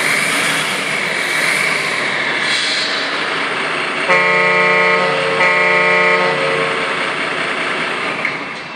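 A vehicle horn sounds twice, each toot about a second long with a brief gap between, over steady vehicle noise that fades slightly near the end.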